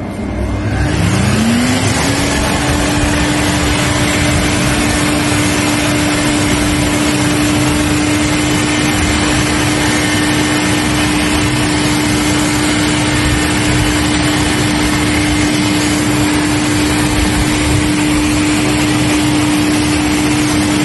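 Vacuum cleaner starting up on an air conditioner's filter: the motor's whine rises in pitch over about the first two seconds, then runs steadily under a loud rush of suction.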